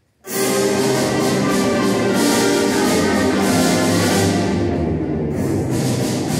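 Middle school symphonic band strikes up its piece all at once, entering loudly about a quarter second in after near silence, with full brass and percussion playing together.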